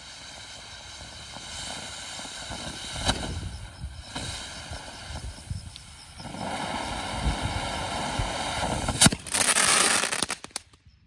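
A ground fountain firework sprays sparks with a rushing hiss and an occasional pop. The hiss swells louder about six seconds in. Near the end a sharp bang and a brief, louder rush mark the fountain's malfunctioning finish, and then the sound dies away.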